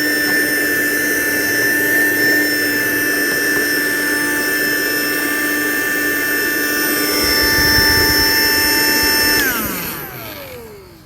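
Vacuum cleaner running steadily with a high whine while sucking debris out of the blower motor housing through a thin pipe taped to its hose. About nine and a half seconds in it is switched off, and its whine falls in pitch as the motor spins down.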